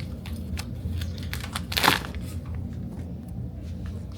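A package of dog treats being handled and opened: crinkling and small clicks, with one louder tear just under two seconds in.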